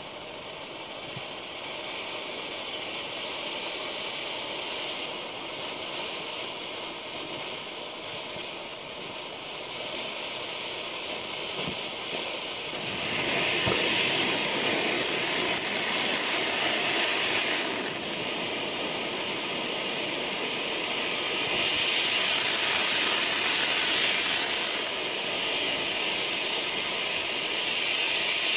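Low-noise firework fountain spraying sparks with a steady hiss, which swells louder about halfway through, eases, then swells again.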